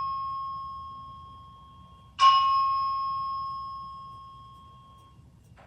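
A chime struck once about two seconds in, ringing on one clear pitch and fading away over about three seconds, while the dying tail of an identical earlier stroke fades at the start. A faint click sounds near the end.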